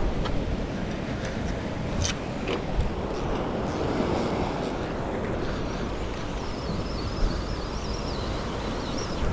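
Wind on the microphone over the wash of surf, with a few sharp clicks two to three seconds in.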